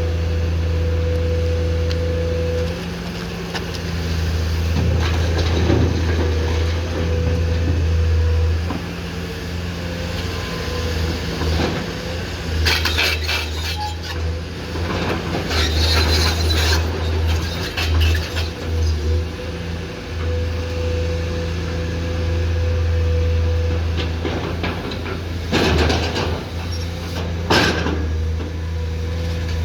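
Komatsu PC210-10M0 excavator's diesel engine running, its low drone swelling and dropping again and again as the load changes. Several loud clattering crashes of material and metal, from the bucket loading a dumper, come in the middle and near the end.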